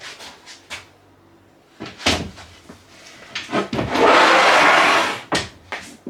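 Short knocks and a low thump of things being handled, then a loud scraping noise lasting over a second, about four seconds in, followed by two quick clicks.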